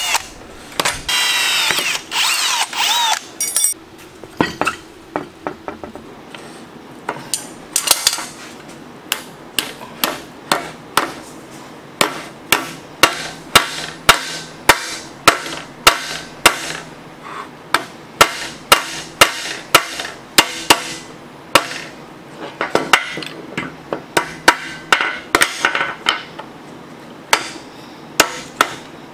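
A drill bores through a steel strap for about three seconds, then a hammer strikes the steel bar held in a bench vise over and over, about two blows a second, bending it over the jaws.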